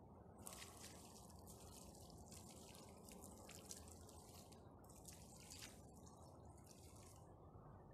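Runny mud slurry poured from a small plastic tub onto a pile of stones and soil, trickling and dripping faintly and steadily.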